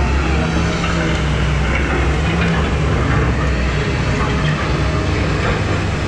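Steady rush of moving water around a round river-rapids raft, with a strong low rumble underneath.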